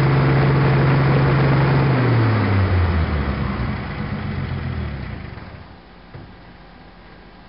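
An old pickup truck's engine, driving the papercrete mixer, runs steadily, then slows with a falling pitch from about two seconds in and dies away about five seconds in as the mixer is shut down at the end of the batch.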